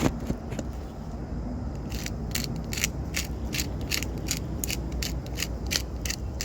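Ratchet-like mechanical clicking, evenly spaced at about three clicks a second, starting about two seconds in, over a steady low rumble.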